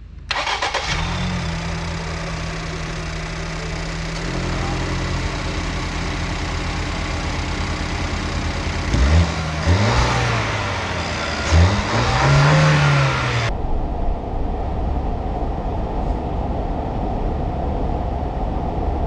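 Car engine running steadily, then revved up and down twice about halfway through.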